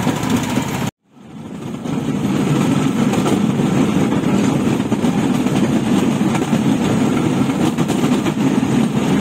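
Railway motor trolley running along the track: a steady engine drone mixed with the noise of its wheels on the rails. The sound cuts out for a moment about a second in, then fades back up and runs on steadily.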